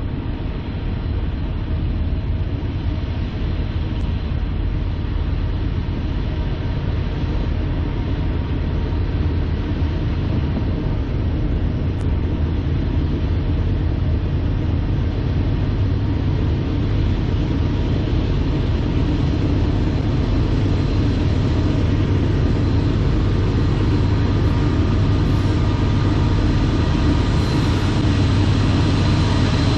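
Diesel locomotives of an approaching CSX freight train: a steady low engine rumble that grows gradually louder as the train nears.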